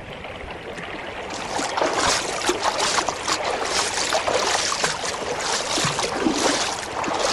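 Radio-drama sound effect of water splashing and burbling in a shallow stream, as of someone wading across it barefoot. It swells up over the first second or so, then goes on unevenly.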